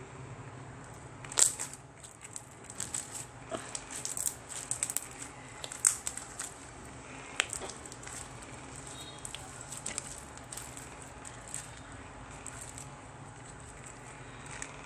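Slime being squished and worked by hand, making irregular crackling clicks and pops. They come thickest in the first half and thin out to a few scattered pops later.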